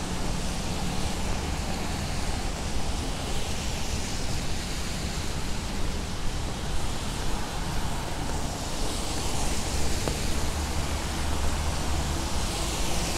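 Rain and city traffic on wet streets: a steady hiss of rainfall and tyres over a low traffic rumble, with a vehicle's hiss swelling in the last few seconds.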